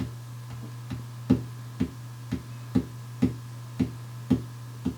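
Light taps in an even rhythm, about two a second, made to set off a sound-reactive LED light stick, over a steady low hum.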